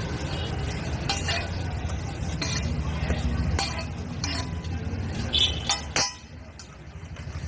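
Metal spatula clinking, tapping and scraping on a flat iron griddle (tawa), in sharp strikes every second or so, over a steady low rumble that drops away about six seconds in.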